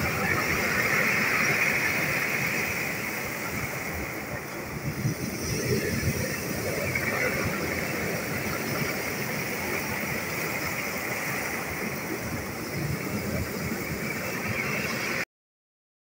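Sea surf breaking and washing up a pebble beach: a continuous rushing wash that swells and eases as the waves come in, and cuts off suddenly near the end.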